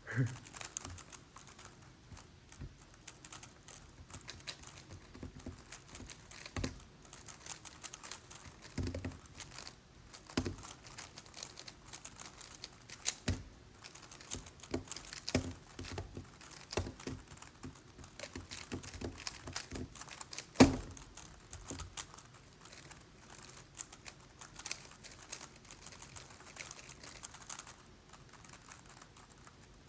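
Megaminx being turned fast in a speedsolve: a dense, irregular run of small plastic clicks and clacks, with one sharper knock about twenty seconds in.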